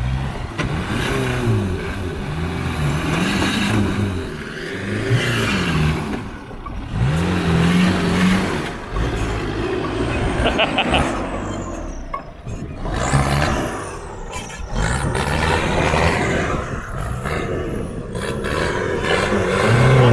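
Modified off-road 4x4's engine revving hard as it climbs a steep dirt slope, the revs rising and falling again and again.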